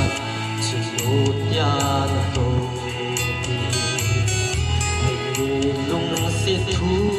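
Recorded music: a song with a melody line over a bass that pulses in a steady rhythm, in a stretch without sung words.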